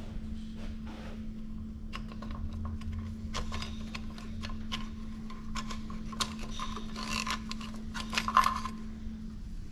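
Scattered light metallic clicks and rattles as hands work a wet timing belt off the cam gears of a PSA 1.2 THP engine and shift the hanging hoist chain, the clicks thickest near the end. A steady hum runs underneath.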